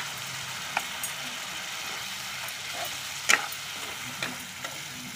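Spiced tomato and onion masala sizzling in a kadai while it is stirred with a steel ladle. A few sharp clicks and scrapes of the ladle against the pan stand out, the loudest a little over three seconds in.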